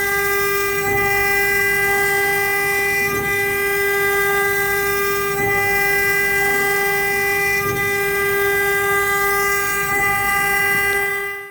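Wood CNC router's spindle running with a steady high whine, cutting again after being restarted from a saved break point. A faint swell recurs about every two seconds, and the sound fades out at the very end.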